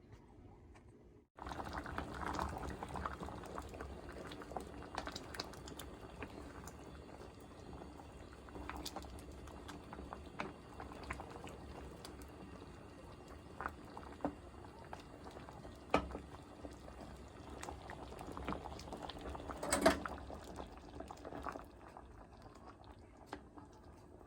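A pot of curry bubbling at a simmer, with a steady bubbling hiss and scattered pops. It starts abruptly just over a second in, and a couple of louder pops stand out about 16 and 20 seconds in.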